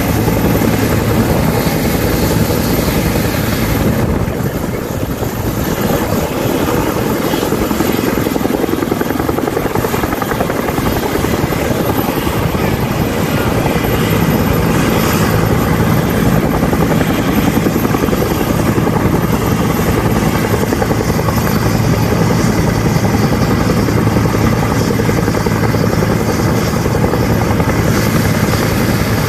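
A UH-60 Black Hawk and a UH-1 Huey helicopter running on the ground with their rotors turning: loud, steady turbine and rotor noise.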